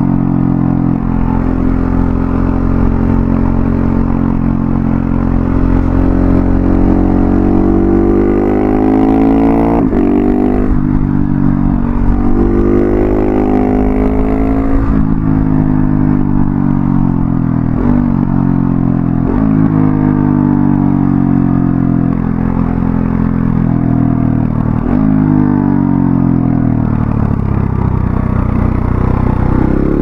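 KTM 690 SMC R single-cylinder engine breathing through an Arrow Thunder slip-on exhaust with its dB killer fitted, under way. The pitch rises and falls with the throttle, dropping suddenly several times at upshifts.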